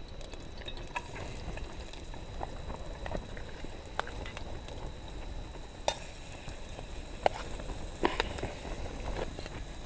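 Diced onion sizzling in oil in a metal camping pot, stirred with a long metal spoon that clicks and scrapes against the pot every second or two, over a steady low rumble.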